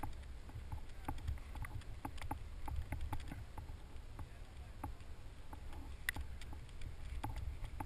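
Wind buffeting the camera microphone as a fluttering low rumble, with faint clicks and ticks scattered through it.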